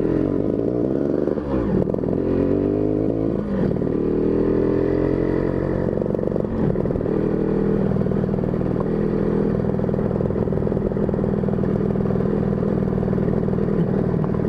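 Motorcycle engine running under way, breathing through a box air filter refitted over a big carburettor. The revs drop and climb again twice in the first few seconds, then hold steady.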